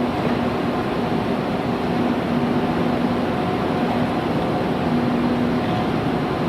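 Steady hum and rush of KTX high-speed trains standing at the platform waiting to depart, with a steady low tone running through it.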